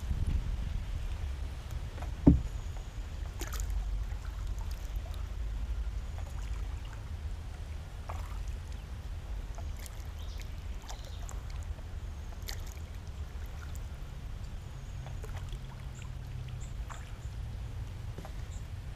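Wooden paddle stroking through the water beside a small wooden boat, with light drips and splashes, over a steady low wind rumble on the microphone. About two seconds in there is a single sharp knock, the loudest sound.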